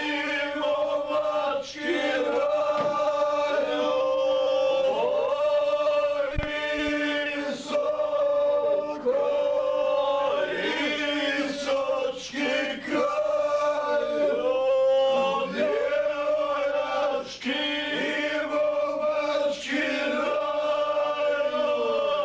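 A group of men singing together, with no instruments, in long held notes that slide down at the ends of phrases.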